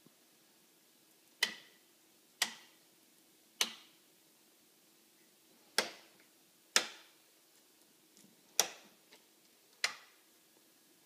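Switches on a metal prop control console clicking seven times at uneven intervals as they are flipped and pressed, each click sharp with a short ringing tail. A faint steady hum runs underneath.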